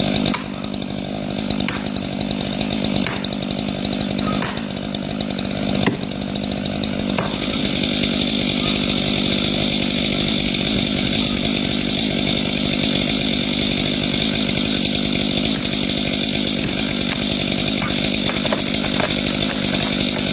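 Chainsaw running at steady high revs, cutting through oak wood. A few sharp ticks come in the first several seconds, then it runs slightly louder and even.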